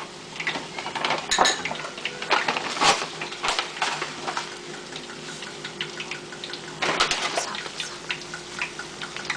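Metal utensils clinking and scraping irregularly against a cooking pot and a spoon, as sugar is spooned in and the sauce-coated chicken is stirred. The louder clatters come about a second and a half, three seconds and seven seconds in.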